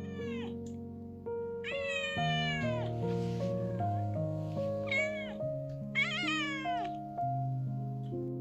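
A domestic cat meowing four times, each call falling in pitch, the longest a drawn-out meow about two seconds in, over background piano music.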